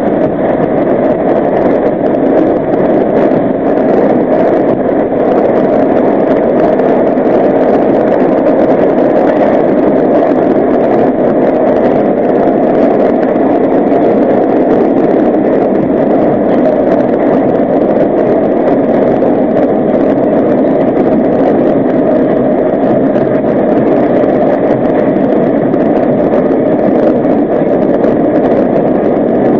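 R32 subway train running through a tunnel: a loud, steady rumble of wheels on rail and motors, heard from the front of the car.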